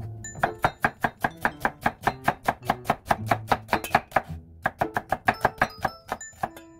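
Chef's knife slicing an onion on a wooden cutting board: quick, even knocks of the blade striking the board, about five a second, with a short break about two-thirds in. Background music plays underneath.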